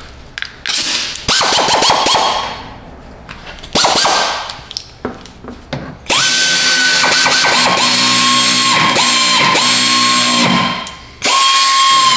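Cordless power driver running in screws through a pickup's plastic fender flare. Its motor whines steadily for several seconds with a couple of brief dips, stops, then runs again near the end, after a first half of scattered clicks and knocks from handling the tool and screws.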